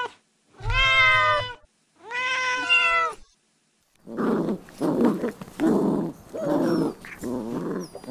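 A young kitten gives two meows, each about a second long. After a short pause, a small Yorkshire terrier growls in short, repeated bursts while mouthing a hand in play.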